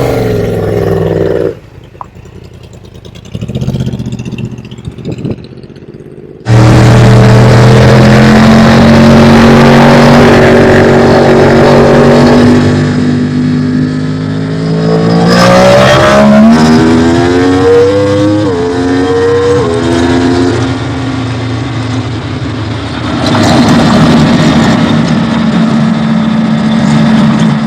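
A vehicle engine running under load. It comes in loudly about six seconds in and holds a steady pitch. Then, after about fifteen seconds, the pitch climbs and drops back several times as it shifts up through the gears.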